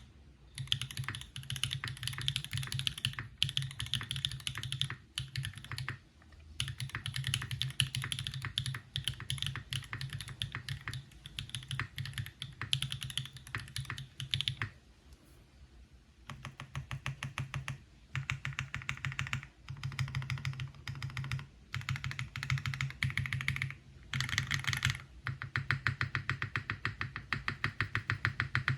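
Typing on a TGR x Singa Unikorn mechanical keyboard with AEboards Raed switches, a carbon fiber plate and GMK keycaps: fast runs of keystrokes in bursts with short pauses, the longest about halfway through.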